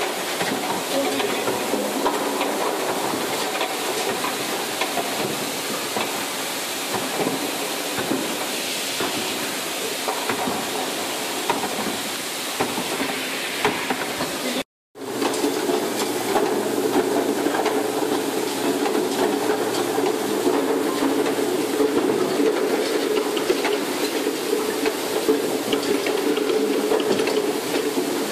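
Bottle unscrambler with its conveyor and feed screw running: a steady mechanical hiss with many small clicks of bottles knocking along the line. The sound drops out briefly about halfway, then comes back with a stronger steady hum under the clatter.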